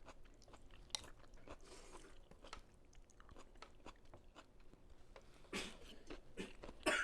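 Faint close-up chewing of vegetable pho, with many small mouth clicks and a few louder mouth sounds near the end.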